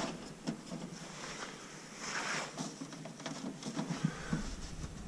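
Light handling noises of a thin aluminium fairing being positioned against the aircraft's aluminium skin: a few soft taps and clicks, with a brief scraping rustle about two seconds in.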